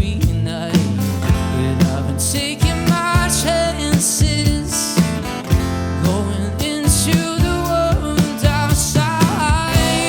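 Live band playing an instrumental passage: guitars over bass and drums, with a steady beat.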